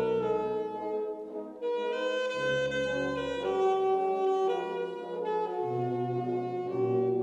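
An alto saxophone, an 1863 Gautrot Marques instrument, plays a slow melody of held notes with a wind band accompanying it. The band gives sustained chords and deeper bass notes underneath.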